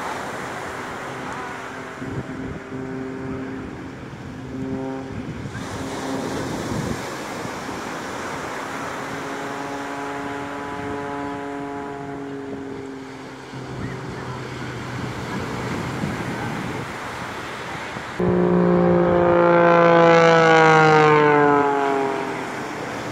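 Aerobatic airplane engine running at a steady pitch in two spells, over wind and surf noise. Near the end it passes much louder, its pitch falling as it goes by.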